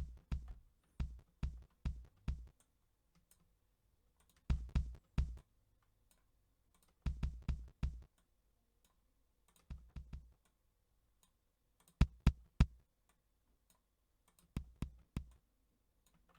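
Synthesized kick drum sample triggered again and again in short groups of two to five hits, each a low thump with a sharp click. The click sits in the kick's tail, an unwanted artifact left at the end of the sample.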